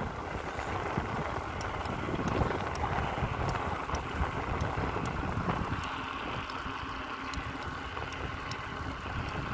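Wind buffeting the microphone over the rolling of a bicycle on an asphalt lane: a steady rushing noise with an uneven low rumble.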